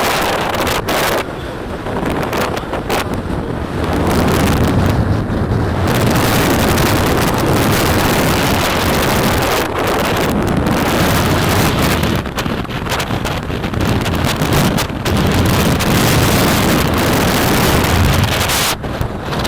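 Strong wind buffeting the action camera's microphone: a loud, gusting rush of noise with a heavy low rumble that swells and eases, dipping briefly a few times.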